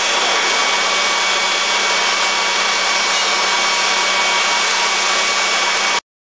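Pipe painting plant machinery running: a steady, even hiss with a few faint high whining tones, which cuts off suddenly about six seconds in.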